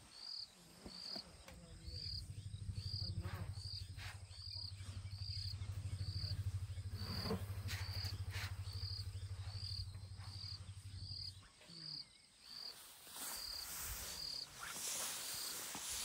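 African elephants giving a low greeting rumble for about ten seconds, dying away about eleven seconds in. An insect chirps steadily alongside, about three chirps every two seconds.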